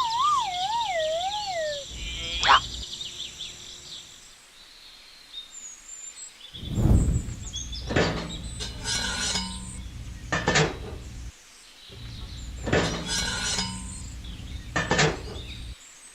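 A wavering, falling whistle-like tone for about two seconds, then a run of sharp clinks and knocks of small hard objects, several of them spaced a second or two apart.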